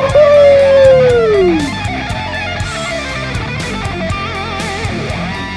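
Electric-guitar rock music. A loud note slides down in pitch over the first couple of seconds, then the music drops to quieter guitar over a steady drum beat.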